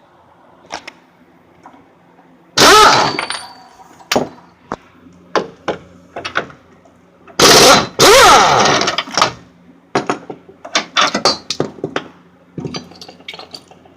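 Cordless impact wrench zipping off control-arm bolts in two loud bursts, the motor whining up and down in pitch, about two and a half and seven and a half seconds in. Then a quick run of metallic knocks and clicks as the loosened hardware and tools are handled.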